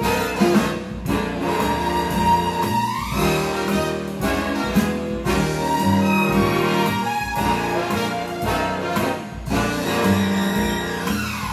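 Big band music with brass, played back over a hi-fi system's pair of large floor-standing loudspeakers driven by valve amplifiers, heard in the listening room.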